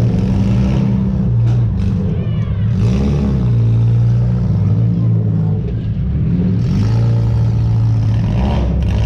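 Demolition derby car's engine running loud and low, revved up and dropping back several times.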